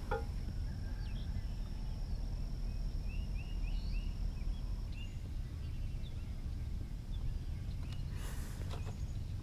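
Outdoor ambience on a pond: a steady low rumble, with a small bird chirping four times in quick succession about three seconds in and a thin steady high tone that stops about five seconds in.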